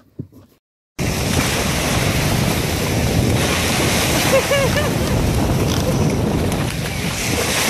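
Ocean surf breaking and washing in, with wind buffeting the microphone, starting abruptly about a second in after a moment of silence. A brief three-note cry rises over the surf about halfway through.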